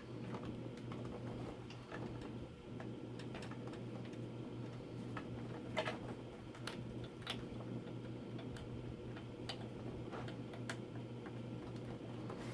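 Scattered small clicks and taps of hands working inside a desktop PC case, unplugging the water cooler pump's cable and pushing it onto a system fan header, with one sharper click about six seconds in. A steady low hum runs underneath.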